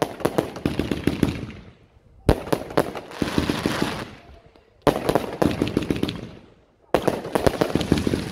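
Prestigious "Lightning Strike" firework cake firing shot after shot. Each shot opens with a sharp bang and a dense run of crackling pops that fades over a second or two, with a new shot about every two and a half seconds.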